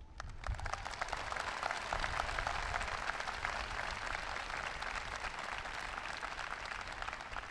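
Large audience applauding: a dense clatter of many hands clapping that starts right away and slowly fades near the end.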